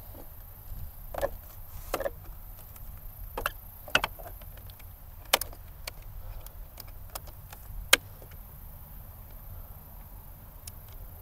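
Scattered sharp clicks and knocks, a handful of them spread out with pauses between, as an RC plane's wing is worked onto the fuselage and snapped home with its metal wing clips.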